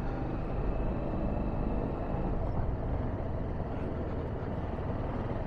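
Motorcycle running steadily on the road, its engine mixed with wind and road noise.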